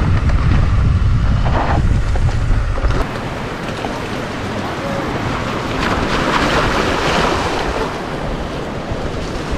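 Strong wind buffeting the microphone, with a steady rushing hiss. The heavy low rumble of the buffeting eases about three seconds in.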